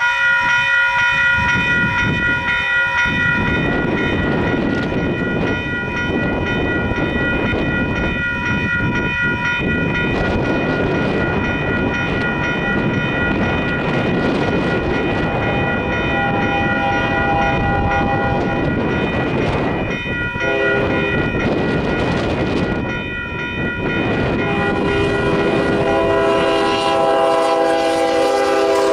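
Railroad crossing bell ringing steadily, starting as the crossing signals activate. An approaching Union Pacific freight locomotive sounds its horn for the crossing from about halfway in: a few blasts, the last one held to the end.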